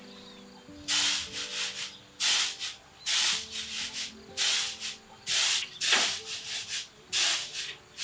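Raw rice being winnowed in a woven bamboo tray (tampah): the grains are tossed up and caught again, a loud swishing rustle about once a second, each stroke trailing off in a few smaller rattles.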